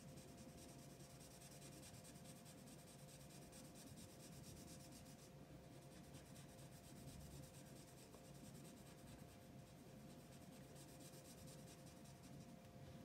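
Faint scratching of a marker pen's tip rubbing on paper as it colours in, over a faint steady hum of room tone.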